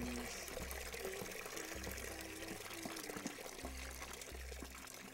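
Water running from a tap into a plastic bucket, a steady splashing fill, with soft low steady tones underneath.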